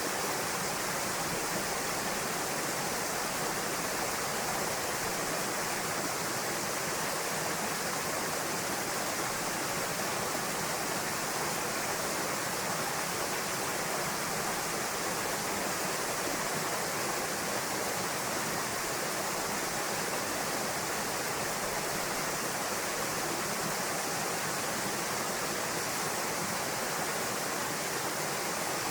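Waterfall cascading over rock into a pool: a steady, unbroken rush of falling and splashing water, heavy in hiss.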